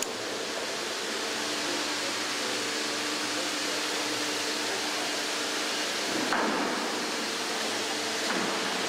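Steady industrial hall noise with a faint machine hum. Two brief louder knocks come about six and eight seconds in.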